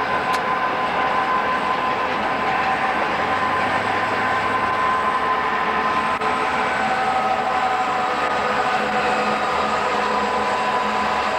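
Southern Pacific six-axle diesel locomotives running steadily downgrade in dynamic braking, a continuous roar with a steady whine, heard from a car pacing the train, with road and wind noise mixed in.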